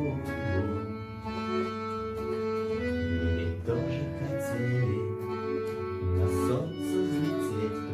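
Garmon (Russian button accordion) playing held chords and melody over a rock backing track with bass and light percussion.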